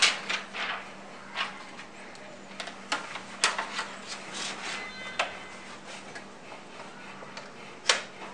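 Plastic protective film crinkling as it is peeled off an HP ElitePad 900 tablet, then irregular plastic clicks and knocks as the tablet is fitted into its ElitePad Jacket case, with a sharp snap a little past three seconds and another near the end.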